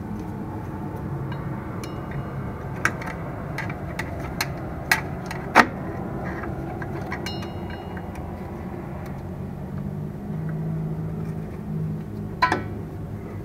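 Metal clicks and clinks from a hand tool and drum brake hardware (shoes, springs, adjuster) being worked on a brake backing plate. A run of sharp clicks comes a few seconds in, the loudest about five and a half seconds in, and another cluster comes near the end, some with a brief metallic ring. Under them is a steady low background noise.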